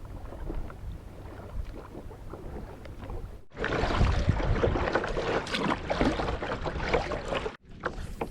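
Water splashing and lapping around a fishing kayak, with small clicks and knocks. It gets louder and busier after a sudden change about three and a half seconds in.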